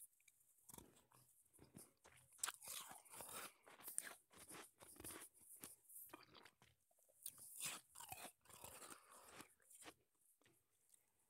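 Soft crunching and chewing of snowball shaved ice in the mouth, close-miked, in irregular clusters of crisp crunches that thin out near the end.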